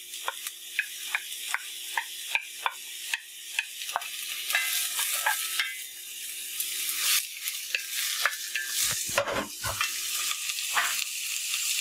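Diced onion and garlic sizzling in hot coconut oil in an enamelled cast-iron pot, stirred with a wooden spoon that ticks against the pot about twice a second at first. The sizzle grows louder as it goes, with a few heavier knocks of the spoon about nine seconds in.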